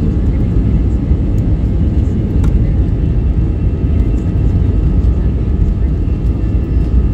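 Airliner cabin noise during the take-off roll: engines at take-off power with a loud, steady deep rumble and faint steady whining tones above it.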